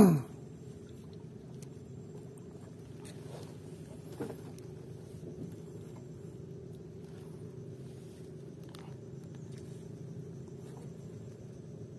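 Low steady drone of a boat engine running, with a few faint clicks scattered through it.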